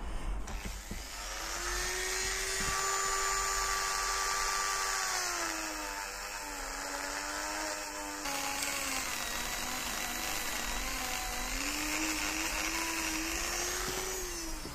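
Dremel-style rotary tool spinning a brass wire brush against a starter solenoid's terminal contact, scrubbing off corrosion. A steady high whine starts about a second in, drops in pitch from around six seconds in, rises again near the end, and stops.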